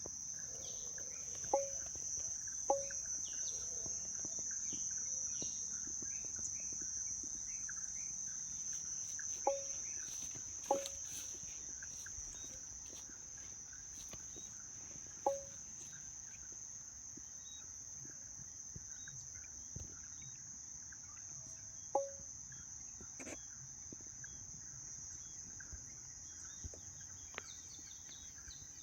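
Steady high-pitched drone of insects, with a short bird call about six times, some in pairs about a second apart.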